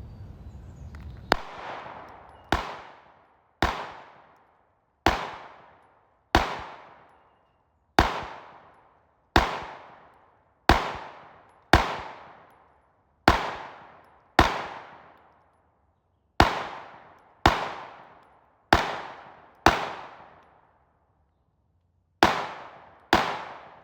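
A Glock 19X 9mm pistol fired in slow single shots, about seventeen in all, roughly one every second or so with a short pause before the last two. Each loud crack is followed by a fading echo.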